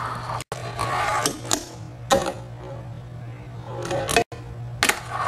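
Fingerboard deck and wheels clicking and clacking on obstacles, several sharp hits about a second apart over a steady electrical hum. The sound cuts out abruptly twice.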